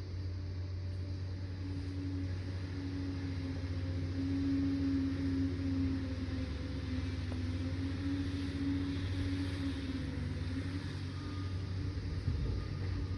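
Liebherr PR 746 crawler dozer's diesel engine running under work, a steady low drone that swells a little in the middle.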